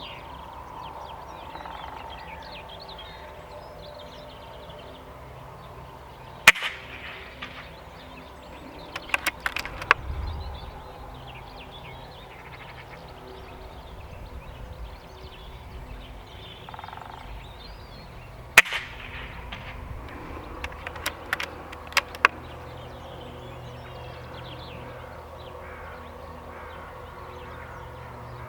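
Two shots from an Air Arms S510 PCP air rifle, about twelve seconds apart, each followed a few seconds later by a quick run of clicks as the side lever is worked to cycle the next pellet. Birds chirp faintly in the background.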